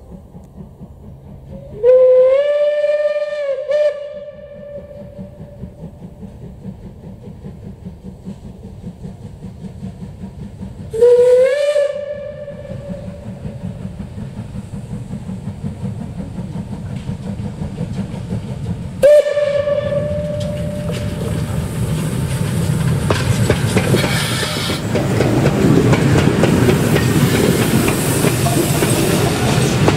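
Steam locomotive whistle blown three times as the engine approaches: a long blast about two seconds in, a shorter one around eleven seconds and a brief toot near twenty seconds, each swooping up in pitch as it opens. After that the locomotive's working exhaust and running gear grow steadily louder as it passes close by, with the clatter of wheels on the rails.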